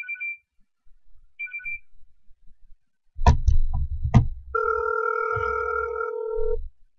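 Telephone ringback tone of an outgoing call: one steady ring of about two seconds, heard after a few short electronic beeps and some sharp knocks of a phone being handled.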